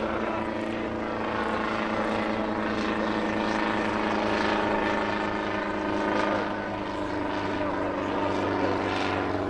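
Small helicopter flying overhead, its engine and rotor running with a steady drone and a rotor beat, over the hiss of pyrotechnic fountains burning on the airframe.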